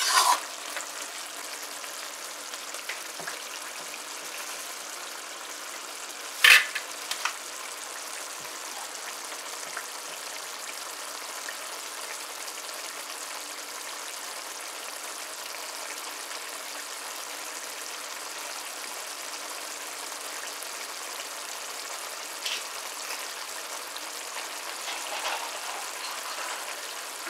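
Squash and chicken curry simmering and sizzling steadily in a wok as its sauce cooks down. A spoon clatters in the pan at the start, and there is one sharp knock about six and a half seconds in.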